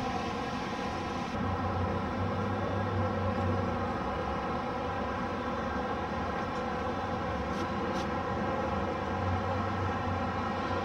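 Aircraft engine droning steadily, a sound of many steady overtones. The highest hiss drops away about a second in.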